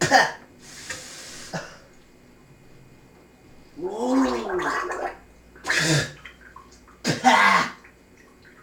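A man coughing and gagging on a mouthful of ground cinnamon in several separate wet, throaty bursts, one of them a drawn-out voiced retch that rises and falls in pitch about four seconds in.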